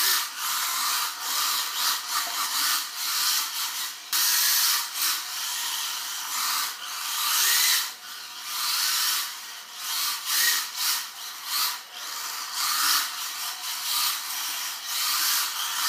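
WLtoys K969 mini RC drift car's brushed electric motor whirring in surges, its pitch rising and falling as the throttle is worked, with the small tyres scrubbing and sliding on a glazed tile floor as it drifts.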